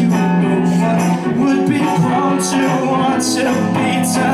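Live song performance: electric guitar playing under sung vocals.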